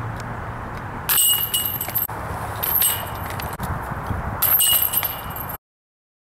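Disc golf basket chains jangling three times, each rattle lasting about a second, over a steady outdoor background. The sound cuts off suddenly near the end.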